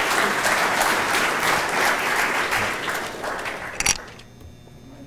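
Audience applauding, dying away about four seconds in with a sharp knock, after which only a faint low hum remains.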